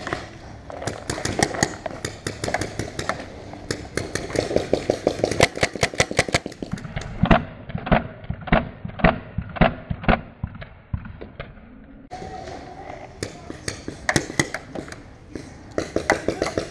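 Paintball markers firing in rapid strings of sharp pops, several shots a second, with a run of evenly spaced shots, two to three a second, in the middle.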